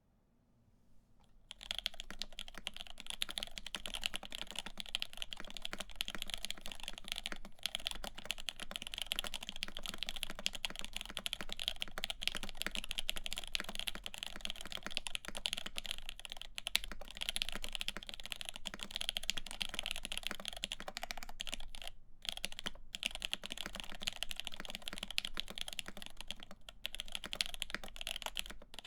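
Continuous fast typing on a CAKE60 mechanical keyboard with lubed Lavender linear switches, an FR4 plate and GMK keycaps: a dense run of soft keystrokes that starts about a second and a half in, with a couple of short pauses near the end.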